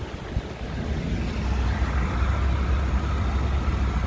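Red pickup truck driving slowly on a dirt road, towing a small camper trailer: a steady low engine and road hum that grows louder about a second in.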